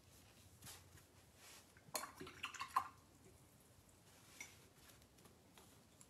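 Quiet handling of painting supplies: a short run of small clicks and taps about two seconds in as a paintbrush and supplies are set down and picked up, then one more small tick a couple of seconds later.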